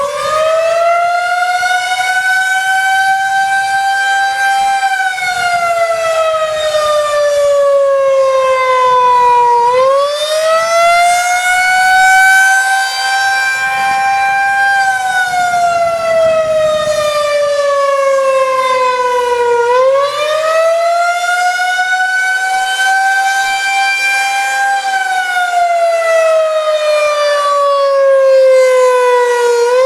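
Federal Signal 2001-130 electromechanical outdoor warning siren sounding the attack signal: a loud wailing tone that climbs quickly, holds high for a few seconds, then slides slowly back down. It repeats about every ten seconds, three times.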